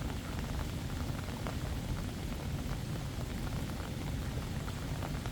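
Fast-flowing floodwater rushing steadily: a dense, even rush of noise, heaviest in the low end, with a few faint ticks.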